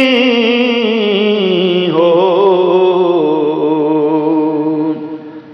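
A man singing a Punjabi rubai, drawing out a long wavering, ornamented note at the end of a line, which fades out about five seconds in.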